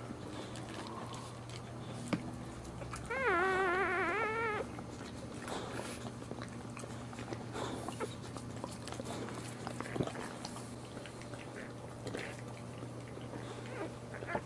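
A newborn boxer puppy cries once, a few seconds in: a high, wavering squeal lasting about a second and a half. Around it are faint soft clicks over a low steady hum.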